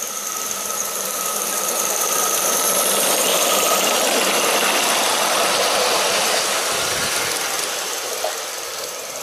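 Live-steam model of a Southern Pacific Daylight streamlined steam locomotive chuffing as it runs by on garden-railway track, growing louder as it passes close and then fading as it moves away.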